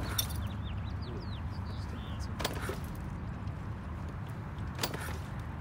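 Outdoor background: a steady low rumble like distant traffic, with a few faint chirps early on and about three light clicks or knocks spaced a couple of seconds apart.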